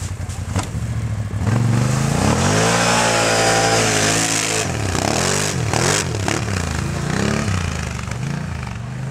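ATV engine revving hard: its pitch climbs and holds high for a few seconds, then rises and falls several times as the throttle comes on and off.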